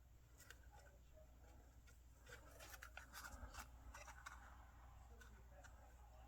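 Near silence with a low hum and faint, scattered light taps and rustles, about two seconds in through five seconds, from small cardstock pieces being handled and pressed into place.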